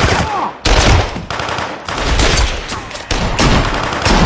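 Film gunfight with handgun shots: three heavy shots a little over a second apart, each with a long echoing tail.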